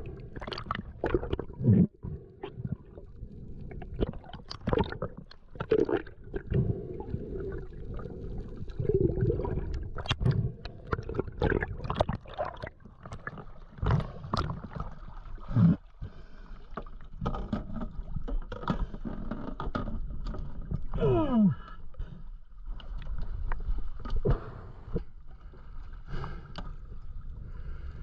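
Underwater ambience during a spearfishing dive: muffled water noise with many sharp clicks and knocks, and a short falling whine about three quarters of the way through.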